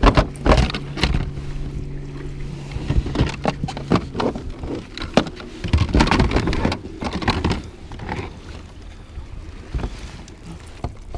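Handling noise: a plastic fish-measuring board and a bass knocking and scraping against the kayak's plastic deck as the fish is laid on the board and measured. The knocks come in clusters, with a low steady hum under them for the first few seconds, and they settle down near the end.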